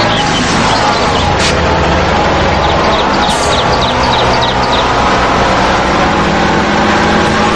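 A motor running steadily, its pitch slowly dipping and rising, with a short run of faint high chirps around the middle.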